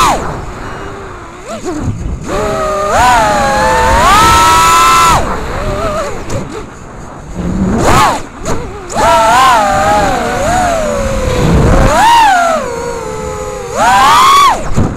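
FPV quadcopter's brushless motors and propellers whining. The pitch rises and falls with the throttle: it drops away on throttle chops and surges back on punches, several times over.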